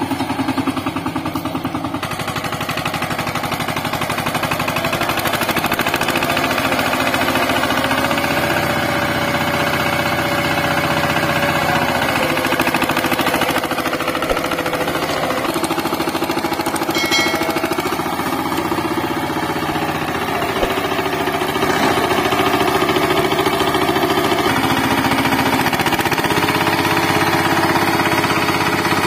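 VST Shakti 130 DI power tiller's single-cylinder diesel engine running under load as it tills, a rapid, steady chugging whose note shifts slightly now and then.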